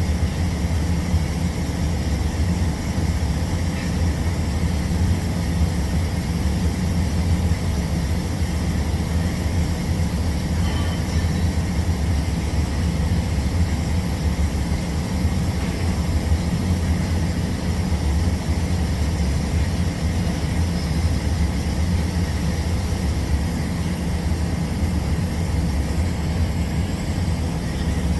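Steady, unchanging low mechanical drone of running machinery.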